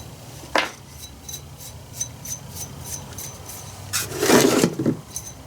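Workbench handling noises while chainsaw parts are taken apart: a sharp click, a run of light, quick ticks, then a short scraping rub near the end.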